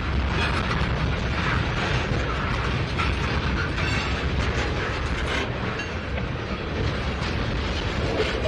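Freight train's covered hoppers and tank cars rolling past close by: a steady rumble of steel wheels on rail, with scattered clicks and knocks from the wheels and couplings.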